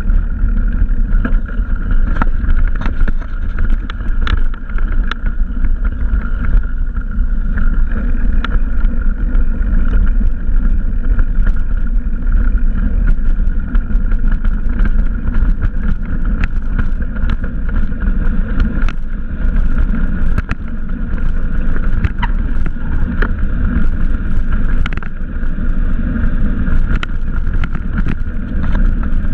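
A bicycle's tyres rolling over a dirt trail, with wind rumbling on a GoPro Hero's microphone and many small clicks and rattles from the bike and camera mount over bumps.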